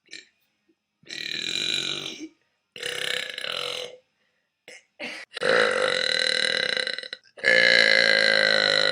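A person burping over and over: two burps of about a second each, two short catches, then two long, drawn-out pitched burps of nearly two seconds each.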